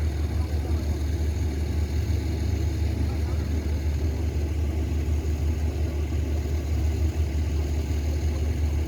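Steady low engine rumble with no breaks.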